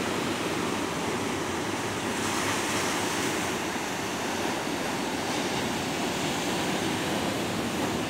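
Sea surf breaking and washing in among rocks along the shore: a steady rush of waves that swells briefly about two seconds in.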